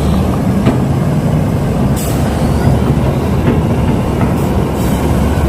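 Radio-controlled model heavy equipment running: a steady engine-like rumble with a low hum and a few scattered clicks and knocks.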